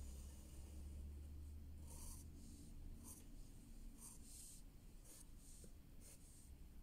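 Graphite pencil scratching on paper in short, faint strokes, about one a second, as leaf veins are drawn. A low hum sits underneath and fades out midway.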